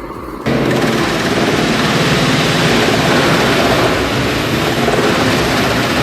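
Heavy wood-processing machinery running loudly and steadily, starting abruptly about half a second in.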